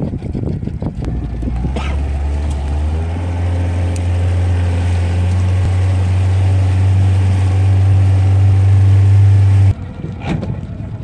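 Fishing boat's engine running under way: a steady low drone that starts about a second in and grows gradually louder, then drops away abruptly near the end.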